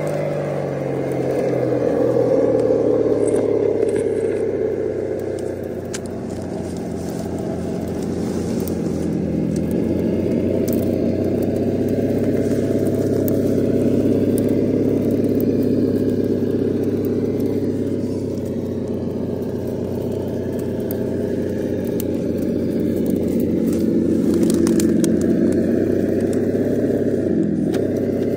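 Simulated engine rumble from an ESS-Dual+ engine sound simulator on an RC rock crawler, a continuous engine note whose pitch rises and falls slowly. Faint crackles and scrapes from the truck's tyres on rock and dry twigs run underneath.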